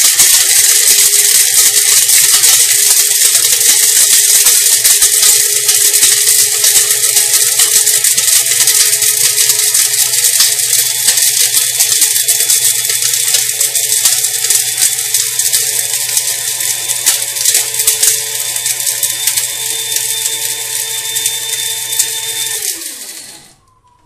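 Krups F203 electric blade grinder running with cinnamon sticks inside, its stainless steel blades throwing the pieces against the bowl in a loud, steady rattle with a motor hum under it. The rattle grows gradually quieter over the run. About 23 seconds in, the motor cuts off and spins down with a short falling whine.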